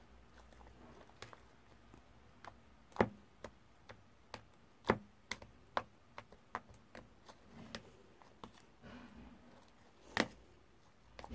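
Slime of glue and contact lens solution being mixed in a bowl: irregular sharp clicks and taps, a few of them louder.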